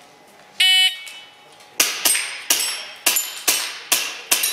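Shot timer's start beep, one high tone about half a second in, then seven quick airsoft pistol shots about half a second apart, each a sharp crack with the steel target plate ringing briefly.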